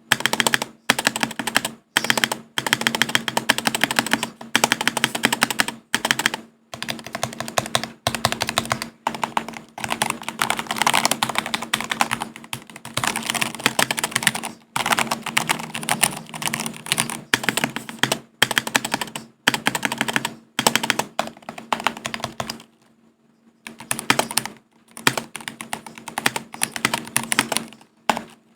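Mechanical keyboard being typed on in fast runs of keystrokes, with short breaks and one longer pause about three-quarters of the way through.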